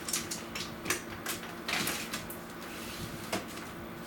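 Handling noises as a fan in a cardboard sleeve is fitted into a window opening: scattered clicks and knocks, with a longer rustle of cardboard about two seconds in, over a steady low hum.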